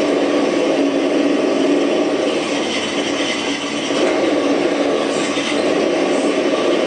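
Ford Mustang Cobra engine sound file played through an ESS One engine-sound system, a loud, steady engine drone holding one pitch without revving.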